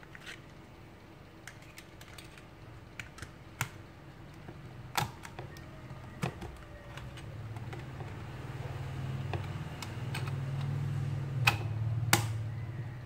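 Scattered sharp plastic clicks and taps as a disc cartridge is handled and loaded into a Victor XM-R2 portable player and its buttons are pressed, the loudest clicks about five seconds in and near the end. A low hum comes up in the second half.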